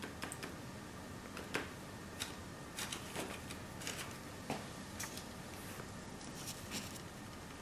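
A few faint, scattered light taps and ticks as a small stencil brush is dipped into paint and dabbed on a wooden paint stick.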